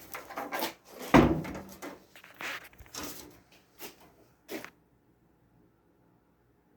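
Knocks and clunks of dryer panels and parts being handled during disassembly, the loudest about a second in.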